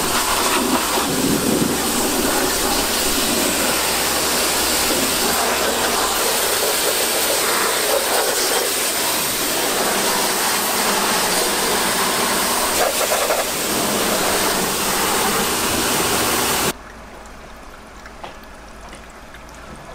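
Pressure washer spraying a water jet into a car's engine bay: a loud, steady hiss of spray with a low hum underneath. It stops abruptly near the end.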